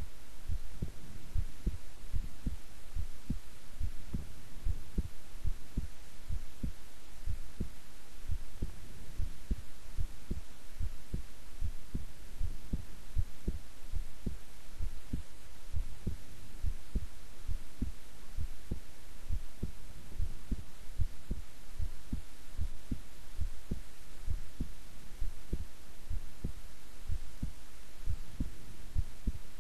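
A woman's heart beating at rest, heard as a steady, even series of low thumps over a constant low hum.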